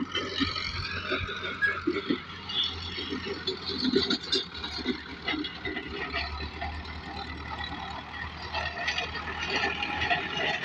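Tractor engine running steadily at work, with irregular clattering over its low hum.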